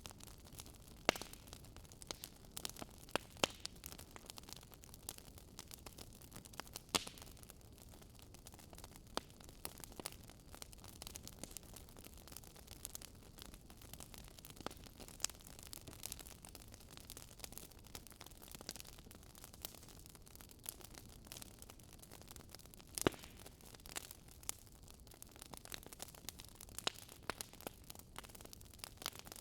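Fireplace crackling: a soft steady hiss of burning with irregular sharp pops and snaps, a few louder ones.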